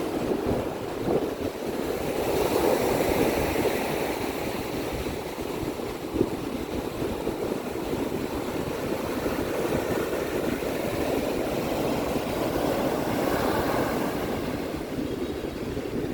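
Sea waves washing onto a beach, a steady rush that swells about three seconds in and again near the end.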